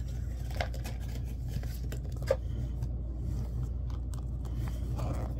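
A few faint clicks and rustles of small objects being handled over a steady low hum. One sharper click comes a little over two seconds in.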